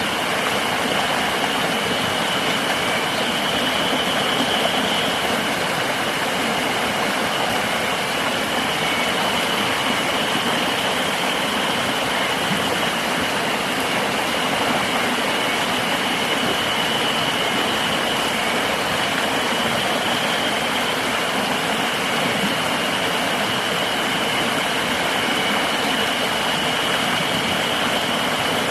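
Steady rushing of river water, with a continuous high-pitched insect drone running over it.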